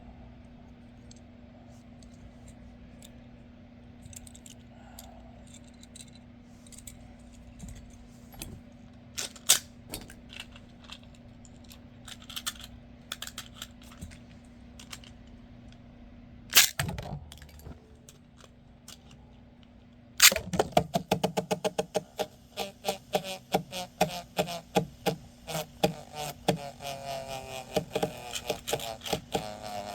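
Beyblade Metal Fight tops, Flame Sagittario and Lightning L-Drago, being handled with scattered plastic and metal clicks and one loud knock. About two-thirds of the way in, the tops spin in the stadium, clattering against each other in rapid clicks with a ringing whir, over a steady low hum.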